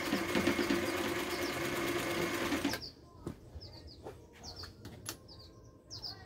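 Singer 319W sewing machine running fast, stitching a cam-driven ball-stitch pattern at a very short stitch length, then stopping abruptly about three seconds in. Afterward, small birds chirp briefly and there are a few light clicks.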